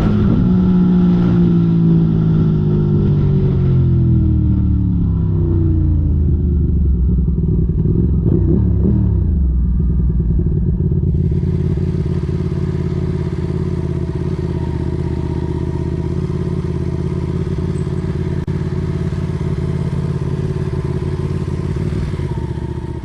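Motorcycle engine slowing down, its pitch falling steadily over about nine seconds, then idling steadily.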